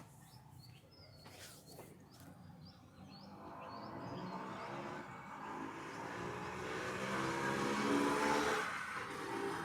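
A motor vehicle passing on the road, its engine growing louder to a peak about eight seconds in, then fading away.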